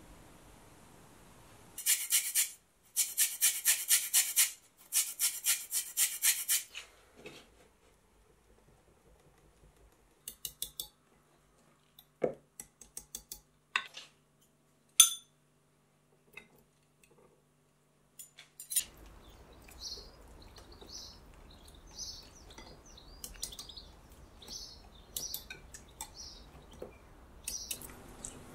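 Wire whisk beating batter in a glass measuring jug: fast, rhythmic clinking of metal on glass in three short runs, then a few scattered taps. In the second half, birds chirp faintly in the background.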